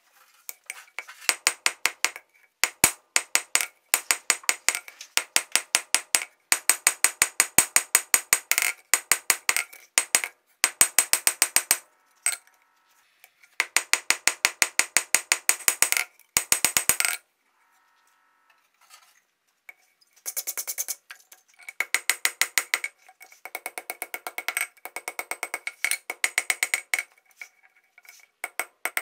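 Hand hammer striking red-hot steel on an anvil in fast runs of blows, the anvil ringing with each strike. The hammering stops briefly twice, the second time for about three seconds, then resumes a little quieter.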